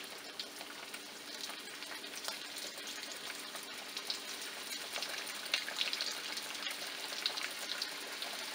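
Cornmeal-breaded catfish pieces frying in hot oil in a pan: a steady sizzle full of small crackling pops, growing a little louder as more pieces are laid in by hand.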